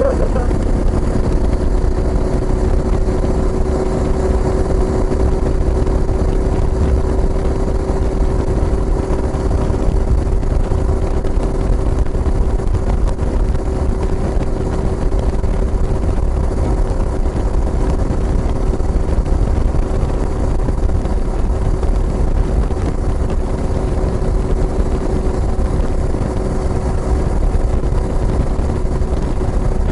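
Kawasaki Estrella's single-cylinder engine running through a Yamato aftermarket muffler at a steady cruising speed, its note holding one pitch throughout over a heavy low rumble.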